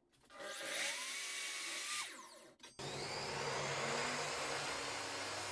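Evolution 10-inch mitre saw's motor spinning up with a rising whine, running briefly and winding down. Then the saw starts again abruptly and runs steadily, its blade cutting through a thick hardwood board.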